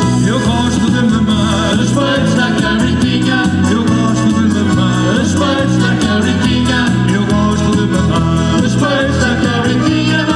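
Live band playing upbeat popular music: a melody line over a pulsing bass and a steady beat.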